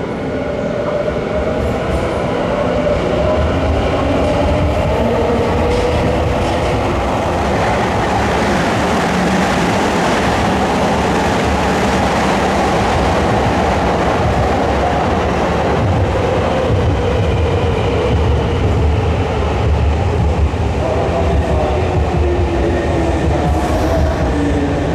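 Nankai 10000 series and 7100 series electric limited express train pulling into the station along the platform: a steady rumble of wheels on rail with clacking over the joints, growing louder over the first few seconds. A motor whine runs under it and falls in pitch near the end as the train slows.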